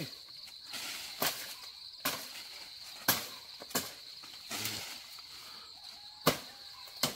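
Sharp chopping strikes, about six at irregular intervals, as a blade cuts leafy branches for tree fodder. A steady high-pitched buzz of insects runs underneath.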